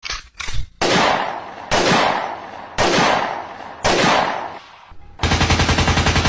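Gunfire: four loud single shots about a second apart, each ringing out as it fades, then a rapid burst of automatic fire near the end.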